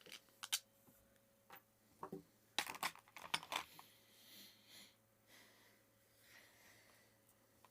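Small hard parts being handled: scattered sharp clicks and knocks, with a quick cluster of clatter about two and a half to three and a half seconds in, then softer rustling.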